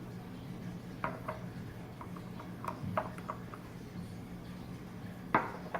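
Light clicks and taps of small glass essential-oil bottles and their caps being handled, with one sharper knock near the end, over a faint steady hum.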